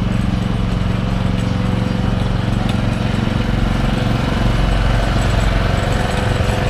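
Small engine running steadily on a walk-behind road line-marking machine while it lays a painted line on the road.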